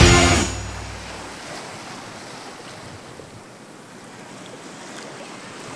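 The last note of the background music dies away in the first second. After that comes a soft, steady rushing of water like sea surf.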